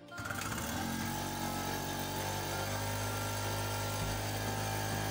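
Small Tiger two-stroke portable generator catching on a pull of its recoil starter right at the start, then running steadily at an even speed.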